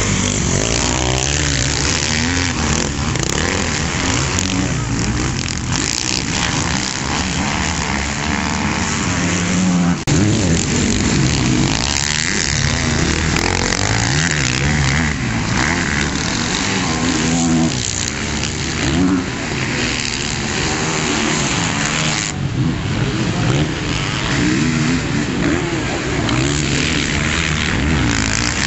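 Motocross bike engines revving up and down as riders accelerate through the corners of a dirt track, the pitch rising and falling again and again. The sound jumps abruptly twice, about ten and twenty-two seconds in.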